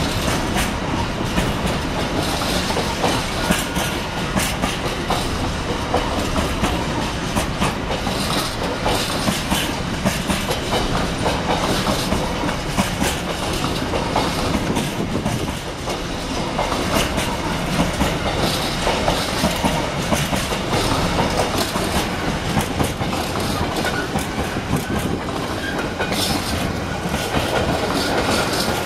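Container freight train's flat wagons rolling past at close range, their wheels clattering steadily over the track.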